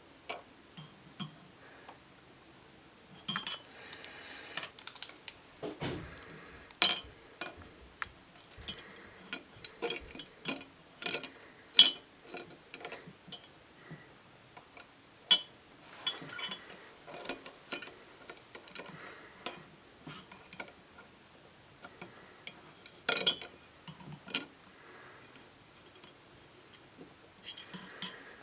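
Plastic Rubik's Cube pieces clicking together and knocking against a glass jar: irregular sharp clicks and clinks, some in quick clusters, with a few louder knocks.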